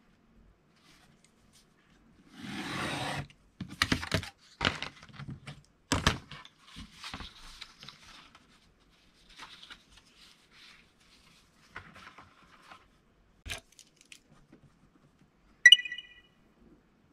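Craft work on styrene foam board over a cutting mat: a craft knife drawn through the board along a steel ruler in one scraping stroke about two seconds in, then knocks and rustles as the cut board pieces are lifted and handled. Near the end a steel ruler is set down with a sharp clack and a short metallic ring.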